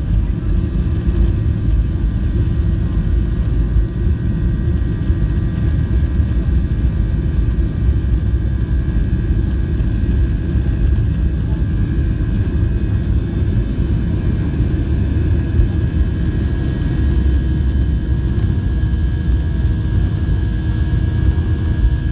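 Boeing 737-700's CFM56-7B turbofans at takeoff thrust, heard from inside the cabin during the takeoff roll and lift-off: a heavy, steady low rumble with a steady high whine of fan tones above it. The whine grows stronger over the last several seconds as the jet climbs away.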